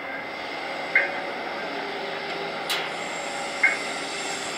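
Liebherr R944 crawler excavator's diesel engine running steadily as it swings and dumps clay into an articulated dump truck. Sharp knocks about a second in and near the end, with a single short click between them.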